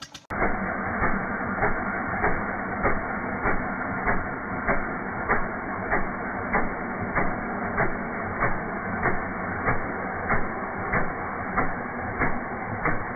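Deutz MAH 711 single-cylinder, evaporative-cooled diesel engine running, a steady clatter with a louder knock repeating evenly a little under twice a second.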